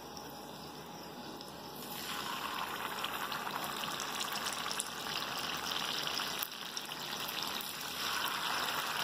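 Batter-coated boiled potato wedges sizzling as they go into hot frying oil in a wok. The hiss swells about two seconds in as pieces are added and grows louder again near the end.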